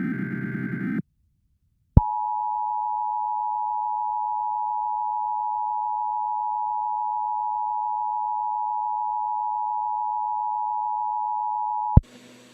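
Emergency Alert System tones. The last of the buzzy SAME header data bursts ends about a second in; after a second of silence comes the EAS two-tone attention signal (853 and 960 Hz together), held steady for about ten seconds and cut off sharply near the end, with a faint hiss after it.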